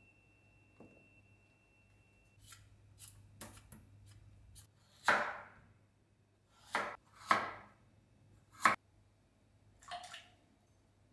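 Kitchen knife cutting through a beetroot onto a bamboo cutting board: a run of knocks, a few light and then four louder ones. Near the end there is a softer knock with a brief ring as the pieces are set into a glass bowl of water.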